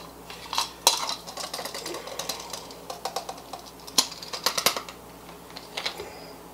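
Light clicks, clinks and knocks of an electric spice grinder's stainless-steel cup and lid being handled and lifted off the base after grinding. The grinder's motor is not running. The sharpest knocks come about a second in and again around four to five seconds in.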